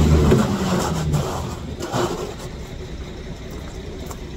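Ready-mix concrete truck's diesel engine running, loud at first and dropping away about a second in, leaving lower background noise with a clunk about two seconds in as wet concrete is dumped from a wheelbarrow.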